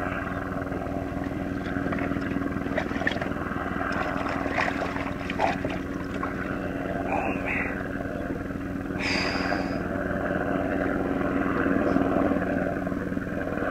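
Steady low drone of a distant engine under wind and water noise, with a few faint knocks and a brief high squeak about nine seconds in.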